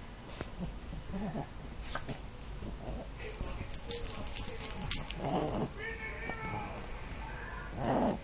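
A dog and a cat play-fighting on a bedspread, with fur and bedding rustling and scuffling and short breathy animal noises from the dog as it mouths the cat. The loudest of these comes just before the end.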